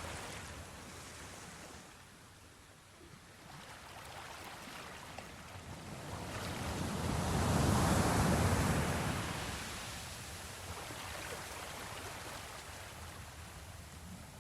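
Ocean waves washing in: a steady hiss of surf that swells to a peak about halfway through as a wave breaks, then draws back.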